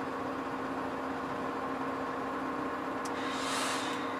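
Hino Profia truck's diesel engine running with a steady drone, heard inside the cab. About three seconds in, a short hiss lasting about a second, beginning and ending with a click.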